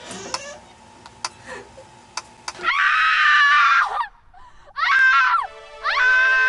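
A few faint knocks, then a person screaming three times, high-pitched and wavering; a steady held music chord comes in under the last scream.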